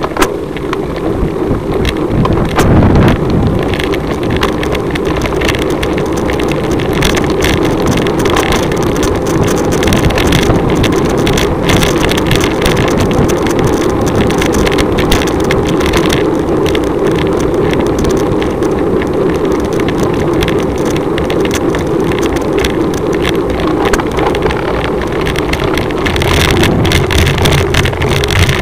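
Steady drone of a slow-moving motor vehicle's engine, mixed with wind rushing over the microphone.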